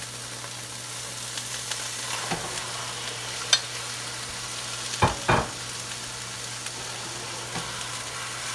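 Food sizzling steadily in a hot pan over a low steady hum, with a sharp click about three and a half seconds in and two louder knocks about five seconds in.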